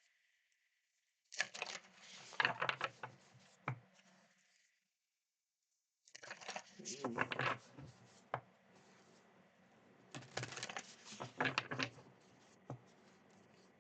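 Tarot cards being shuffled and handled: three bouts of quick papery riffling and clicking, with short pauses between them.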